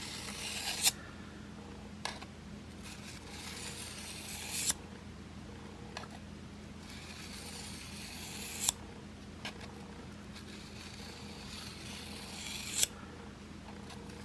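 Steel broadhead blade drawn across a diamond sharpening plate in a roller guide: four long rasping strokes about four seconds apart, each ending in a sharp click, with lighter ticks between. The popping is the edge hitting the wire, rolled-over burr as it forms and breaks off.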